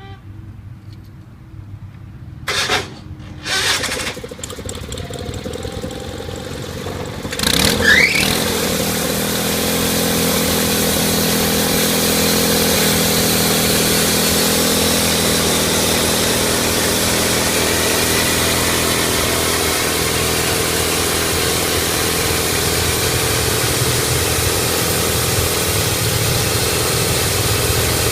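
Portable bandsaw mill's engine running low, with two short loud bursts a few seconds in. About eight seconds in it speeds up with a rising whine, then runs steadily at high speed as the mill runs up for sawing the pine log.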